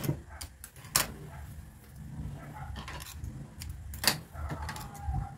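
Fabric being handled and shifted on a stopped Juki sewing machine's table, with rustling and two sharp clicks, about one and four seconds in, over a low steady hum.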